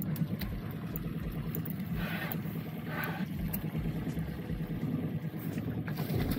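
A boat's outboard motor idling, a steady low, evenly pulsing hum.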